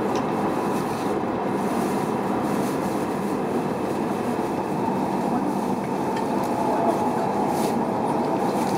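Steady running noise heard inside a Tohoku Shinkansen passenger car: an even, unbroken rush and rumble of the train on the move.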